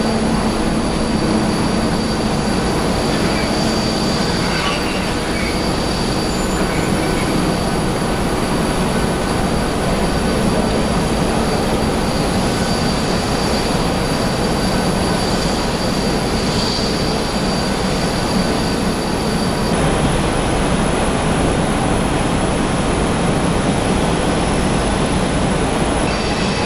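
Loud, steady airport apron noise: an even roar of jet and ground machinery with a thin high whine over it. The whine drops out about two-thirds of the way through and comes back near the end.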